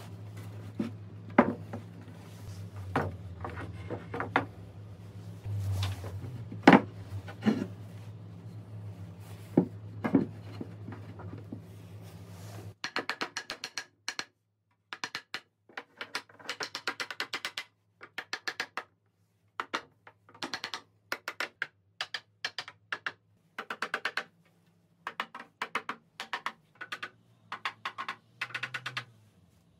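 Sharp wooden knocks and clunks from a solid-wood tabletop and legs being handled, over a low steady hum. About halfway through the hum cuts off abruptly, and bursts of rapid clicking follow, repeating in clusters.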